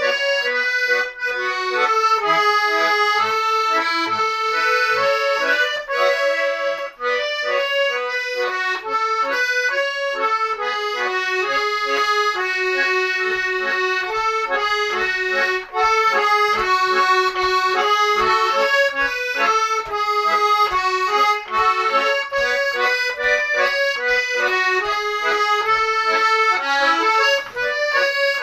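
Garmon, the Russian button accordion, in A major, playing a continuous melody with chords and short bass notes underneath.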